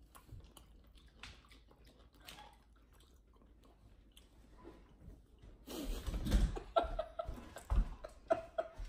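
People chewing pickled sushi ginger, faint small wet mouth clicks at first; from about six seconds in, louder chewing mixed with short pitched vocal noises.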